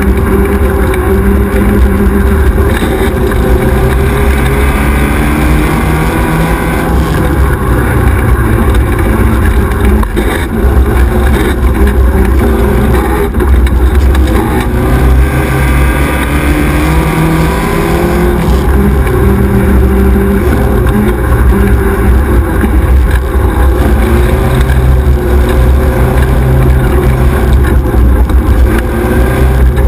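XY 1100R 4x4 buggy's engine running hard, its pitch rising and falling again and again as the driver accelerates and backs off. Heard from on board over a heavy low rumble.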